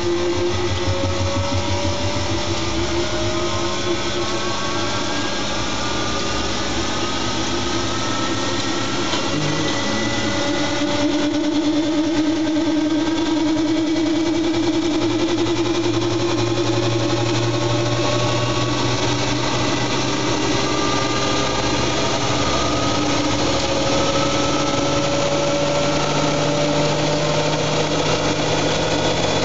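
Siemens Siwamat iQ washing machine running with an empty drum, its motor whine climbing slowly in pitch in long rising glides over a steady low hum, as the drum speeds up.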